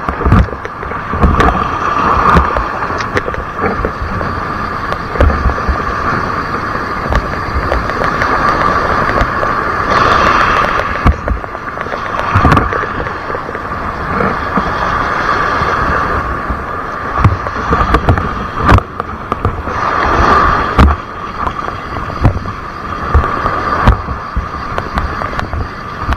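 Wind rumbling on the microphone, with irregular knocks from handling and a steady high hiss throughout.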